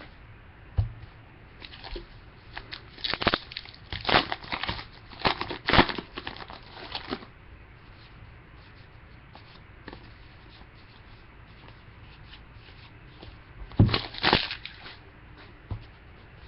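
Trading-card pack wrappers crinkling and tearing as packs are opened and cards handled. The noise comes in several bursts during the first seven seconds and once more about fourteen seconds in.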